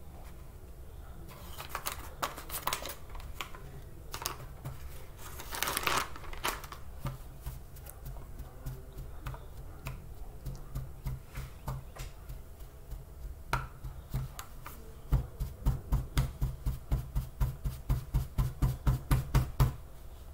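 Bags crinkling as they are handled, then close-up chewing of dry tapioca starch chunks. The chewing ends in a fast, even run of crunches, about four a second, over the last few seconds.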